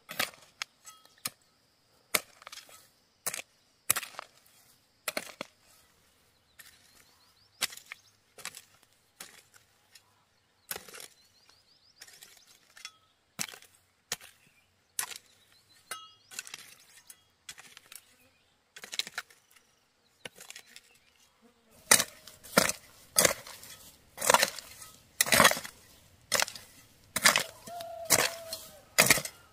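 A hand hoe chopping into dry, stony soil, one strike about every second, the strikes turning louder and quicker for the last several seconds.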